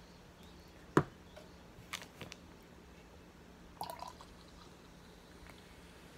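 Drinking from a small glass: a loud gulp about a second in and a couple of smaller swallowing clicks around two seconds, then the glass is set down on the wooden table with a light knock just before four seconds.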